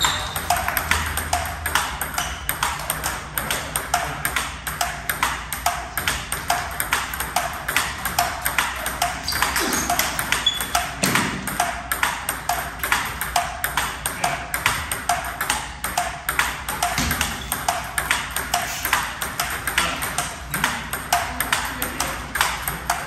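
Table tennis balls clicking off paddles and tables in continuous rallies, a steady stream of sharp clicks several times a second, with rallies at neighbouring tables overlapping.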